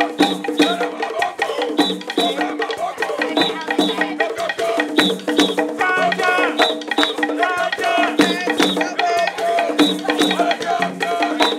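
Upbeat background music with a quick, steady percussion rhythm of wooden knocks and shaker under a melodic line.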